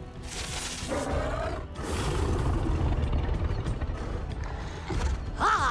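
Animated-film sound effects mixed with a score: rushing whooshes and clattering, mechanical effects over a low rumble, with a short falling, voice-like cry about a second in and rising cries near the end.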